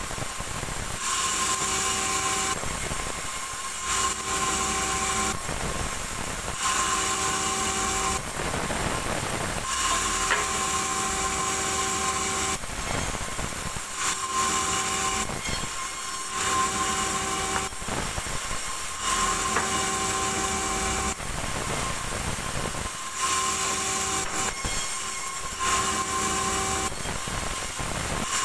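A sawmill band saw ripping a small tazak log into boards, pass after pass. A steady high whine comes and goes every few seconds as each cut runs through the wood.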